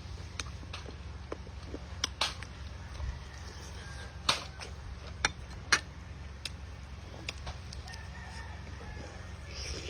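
A rooster crowing in the background, mixed with sharp crunches and clicks from biting into crispy fried pork ribs; the loudest crunches come a little past the middle. A steady low hum runs underneath.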